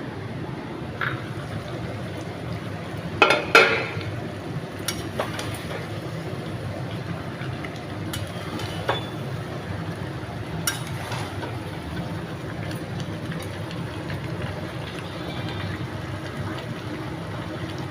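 Chicken liver and gizzard curry cooking in a pan with a steady frying hiss, broken by metal clinks and scrapes against the pan, the loudest a short clatter about three seconds in.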